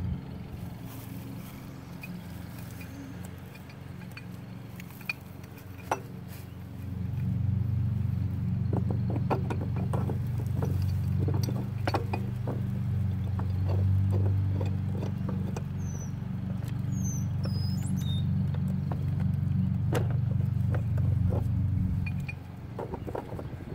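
Metal clicks and clinks of a pipe wrench working on a garden hose coupling at an outdoor spigot, over a steady low motor hum that grows louder about seven seconds in and drops back near the end.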